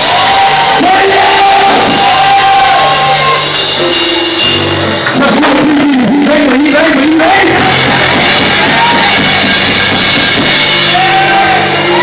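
Loud church music: held accompanying chords with a voice shouting and singing long, sliding lines over them, echoing in a large hall.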